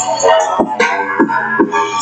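Music with a steady beat and gliding notes, playing through the RSDO RD-L2US portable solar radio's built-in speaker over Bluetooth.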